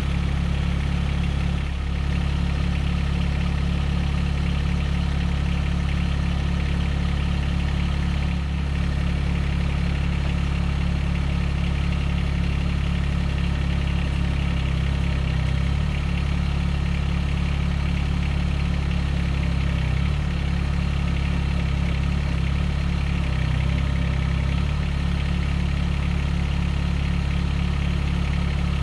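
Mahindra eMax 20S HST compact tractor's diesel engine running steadily, with slight changes in its note a few times in the second half.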